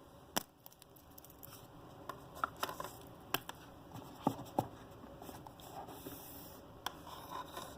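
Handling noises of a wristwatch and its box: scattered sharp clicks and soft rustling as the watch is taken out and turned over in the hands.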